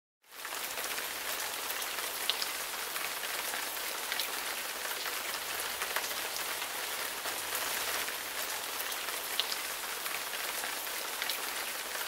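Water from a small waterfall spattering onto rocks: a steady hiss of falling water with scattered small drop splashes. It fades in just after the start.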